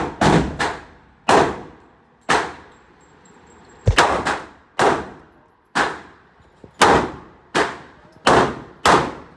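Rapid gunshots at a shooting range, about a dozen sharp reports at uneven intervals of roughly half a second to a second, each followed by a short echoing tail.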